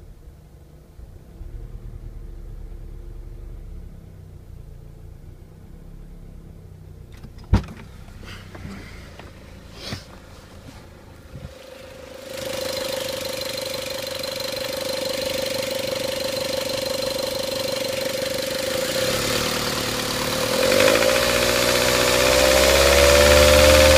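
A car engine that the owner says is knocking: a sharp click, then about 12 s in a steady mechanical running sound starts. Near the end it wavers and rises in pitch and gets louder, as if revved.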